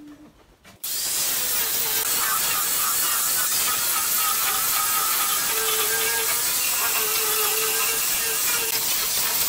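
Handheld angle grinder with a sanding disc running against pallet boards, sanding the old wood: a loud, steady whine over a hiss that starts suddenly about a second in.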